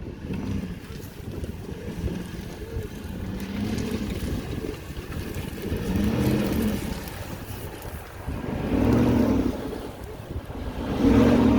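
Off-road SUV engine revving up and falling back in several swells, the loudest near the end, as it works over rough ground.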